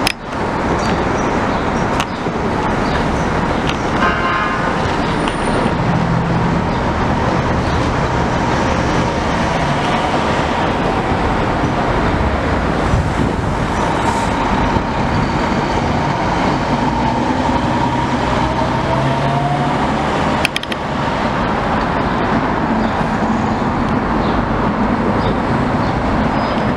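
Fire apparatus pulling out into traffic: a heavy fire engine's diesel running under loud steady traffic noise, with a short horn sound about four seconds in.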